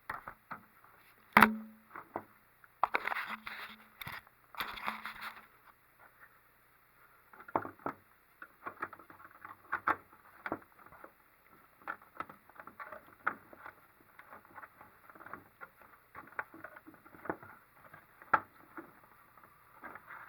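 Plastic 3D-printer frame parts being handled and fitted together: a sharp knock a little over a second in, a few seconds of rustling, then many small irregular clicks and taps.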